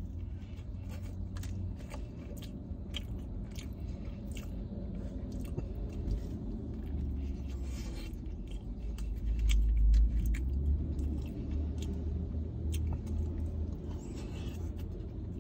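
A person chewing and biting into a cheeseburger slider, with scattered small wet mouth clicks. A low rumble swells about nine to ten seconds in.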